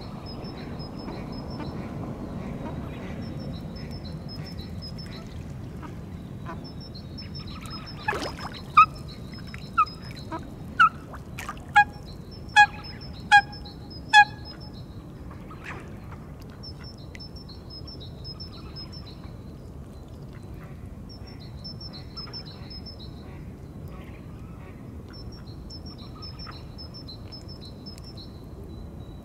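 A waterbird gives a run of seven loud, sharp calls, each under a second apart, about a third of the way in. A small songbird's high, quick phrases repeat every few seconds, over a steady low wind-like rumble.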